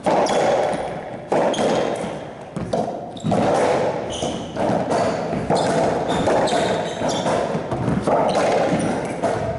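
Racquetball rally: sharp hits of the ball off racquets and the court walls, roughly one every second, each ringing on in the court's echo.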